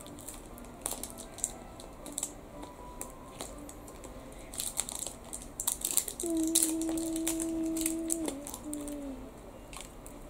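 Crinkling and clicking of a plastic surprise egg and its torn plastic wrap being handled and twisted open, the crackles thickest past the middle. Over them a steady held tone sounds for about two seconds, then a shorter, slightly lower one that dips at its end.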